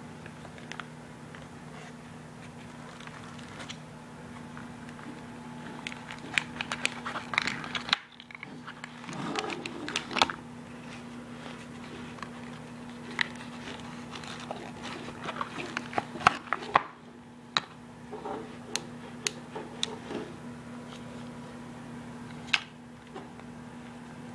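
Handling noise from a jump starter's battery clamps, cables and soft storage case: irregular clicks, rustles and plastic knocks, busiest from about a quarter of the way in to near the end, over a steady low hum.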